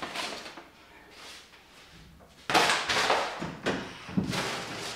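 Brown kraft-paper wrapping pulled off a plant's plastic nursery pot and crumpled: paper rustling and crackling, soft at first, then in several loud bursts from about halfway.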